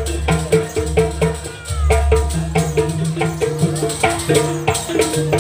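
Live jaranan gamelan accompaniment: drum strikes and quick repeating pitched metallic notes in a fast, steady rhythm over a sustained deep tone.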